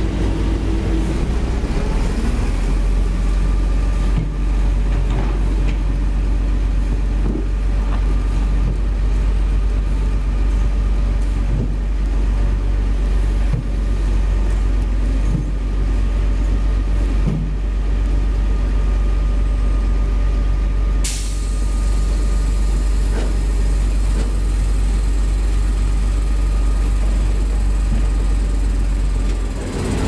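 Crawler excavator's diesel engine running steadily under load as the machine digs in mud, with occasional knocks from the working bucket and arm.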